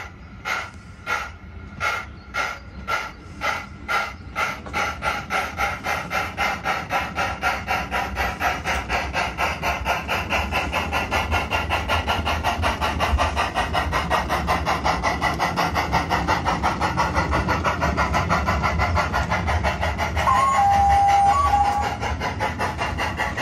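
Sound unit in a battery-powered, radio-controlled 32 mm gauge model of the Ffestiniog 0-4-0 'Prince' playing steam exhaust chuffs as the loco pulls away from a stand. The chuffs start slow and quicken steadily into a rapid beat. About twenty seconds in comes a whistle blast of about a second and a half.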